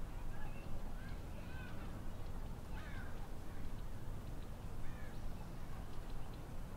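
Several short crow-like caws scattered over a few seconds, over a steady low background rumble.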